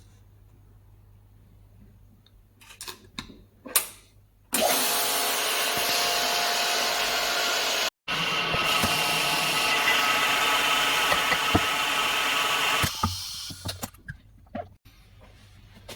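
Vacuum laminating press running after a few clicks and knocks of the parts being set in: a loud steady whirring with a faint whine that starts about four and a half seconds in, cuts out for an instant near the middle, and stops about thirteen seconds in, as the new glass is pressed onto the tablet display.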